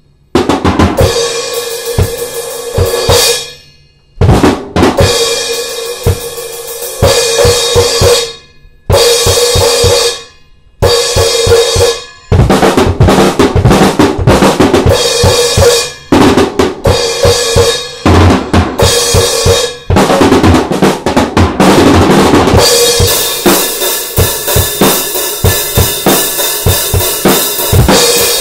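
Pearl Vision Series acoustic drum kit with Paiste and Zildjian cymbals played solo: short fills broken by brief stops in the first part, then continuous playing from about twelve seconds in. Near the end cymbals ring steadily over the beat.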